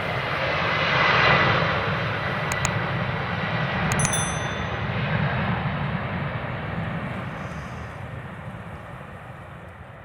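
Airbus A350-1000 jet airliner at take-off power, a loud steady jet noise that peaks about a second in and then slowly fades as the aircraft draws away. A few short metallic clinks come around two and a half and four seconds in.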